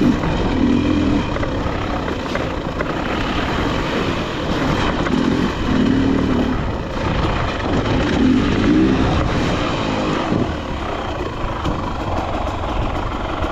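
Dirt bike engine running, its pitch swelling in a few short revs, under a loud, steady rushing noise.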